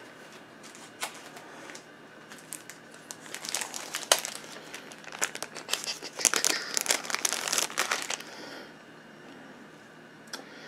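Packing paper crinkling and rustling as a small object is unwrapped by hand, in irregular crackly bursts that grow busier for several seconds and then stop, leaving one last click near the end.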